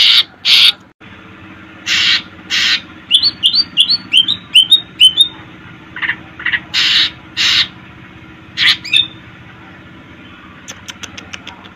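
Green leafbird (cucak ijo) singing: loud, harsh, scratchy calls broken up by a quick run of about eight falling chirps in the middle and a fast string of faint ticks near the end.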